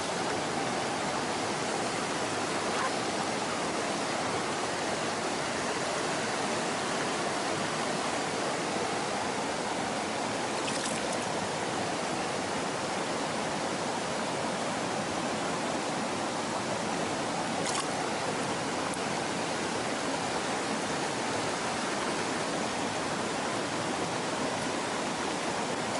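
Steady rushing of a mountain stream's flowing water.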